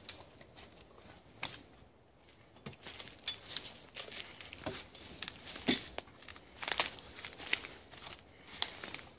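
Dry leaf litter and twigs crackling and rustling under footsteps and hands rummaging on the forest floor: irregular sharp crackles, the loudest about six and seven seconds in.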